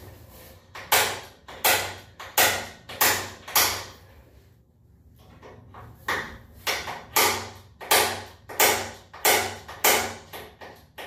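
Rhythmic hand-tool strokes on a glass door's bottom pivot hinge, each a short scrape of metal that fades quickly, about one and a half a second. A run of five comes first, then a pause of about two seconds, then a longer run.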